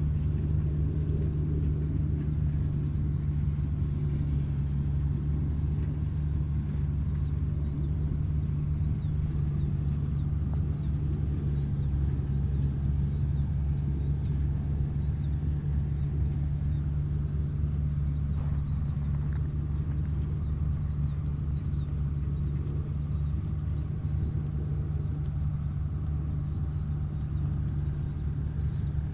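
Tractor engine running steadily at a constant low drone, with a high, steady insect trill and scattered small chirps over it.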